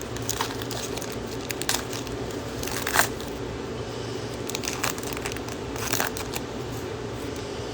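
Foil trading-card pack wrapper crinkling and being torn open, a run of short, scattered crackles over a steady low hum.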